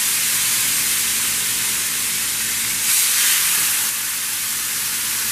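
Seasoned chuck roast sizzling steadily as it sears in a pan on medium-high heat, with a brief louder swell about three seconds in.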